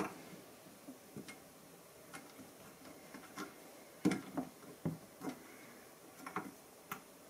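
Light, irregular plastic-and-metal clicks and taps as test-lead banana plugs are worked into the red and black terminal posts on the front of a bench power supply, about ten clicks with a small cluster partway through.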